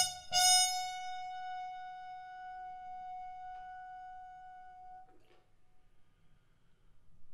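Intro music: a quick run of repeated bright notes at one pitch ends on a single held note that slowly dies away over about five seconds.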